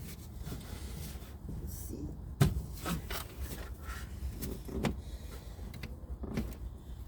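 A few short knocks and clicks from hands-on work on a car, spaced a couple of seconds apart, over a low steady rumble.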